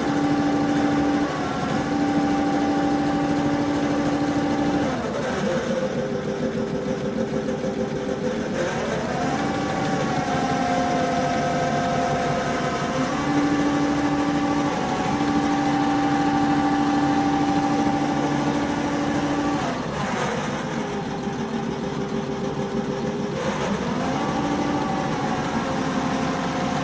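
Multi-function CNC upholstery sewing machine running as it stitches a car seat pattern: a steady motor hum whose pitch drops and climbs back several times as the machine changes speed.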